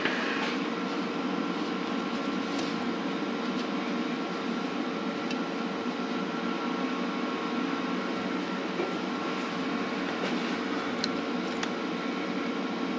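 Steady mechanical whirring hum with an even hiss, like a fan running, with a few light ticks and taps now and then.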